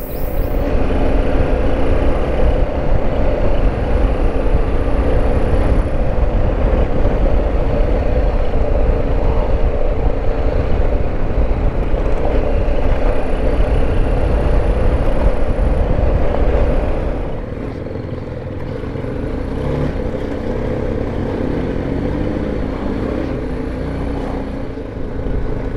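BMW G310GS single-cylinder motorcycle running steadily on a gravel road, heard from the rider's position with heavy wind rumble on the microphone. The wind noise eases and the sound gets quieter about two-thirds of the way through.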